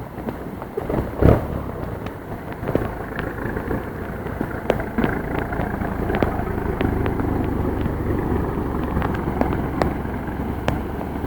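A motor vehicle running along a rain-soaked street, a steady low rumble that grows louder partway through. Over it are many sharp taps and patters of heavy rain falling close by.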